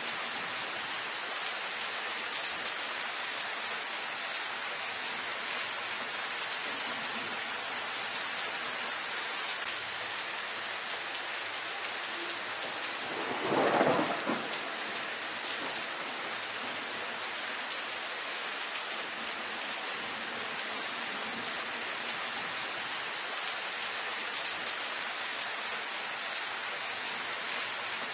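Steady rain falling on leafy foliage, a dense even patter. About halfway through, one brief louder rumbling swell rises and fades within a second or two.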